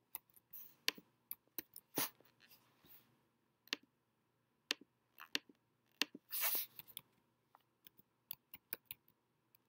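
Computer keyboard keys and mouse or trackpad clicks tapping irregularly as a search term is typed, with a quicker run of key taps in the last couple of seconds. A brief hiss comes a little past the middle.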